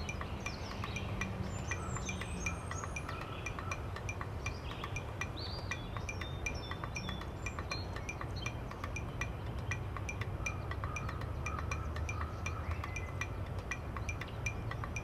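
Background music of light, chiming bell-like tones over a steady ticking pulse.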